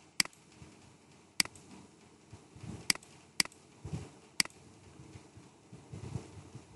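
Five sharp clicks of a computer mouse button, spaced unevenly over a few seconds.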